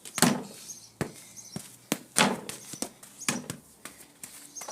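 A football being touched and bounced: a string of irregular thuds, loudest about a quarter second in and again just over two seconds in.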